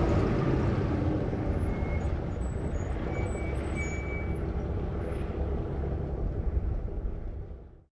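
A 1954 big rig truck's engine rumbling low as the truck pulls in and brakes to a stop. The sound eases off and fades out just before the end.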